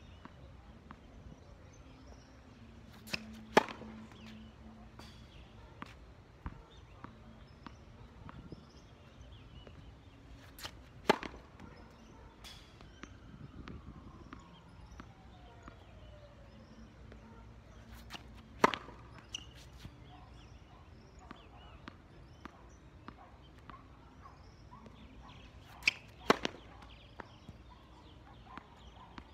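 Tennis racket striking the ball on four serves, sharp pops about seven to eight seconds apart, with fainter clicks of the ball bouncing on the hard court between them.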